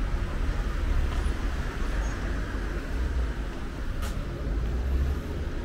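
City street ambience: a steady low rumble of road traffic, with a faint click about four seconds in.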